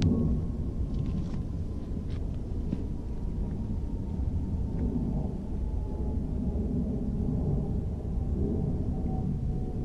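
Wind buffeting the microphone, a steady low rumble that swells and eases. Over it a faint distant whine drops slowly in pitch.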